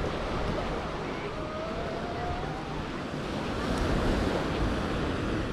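Steady wash of small surf breaking on a sandy beach, mixed with wind rumbling on the microphone.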